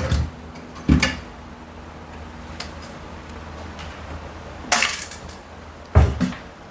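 A few sharp knocks and clatters of the dryer's metal heater assembly and panels being handled and set down: one about a second in, a cluster near five seconds and another around six. A faint low hum runs underneath.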